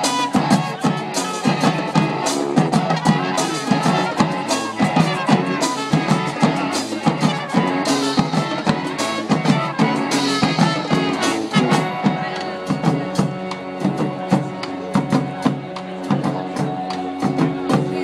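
Brass street band playing a tune, horns over a busy drum beat; the drumming thins out about two-thirds of the way through.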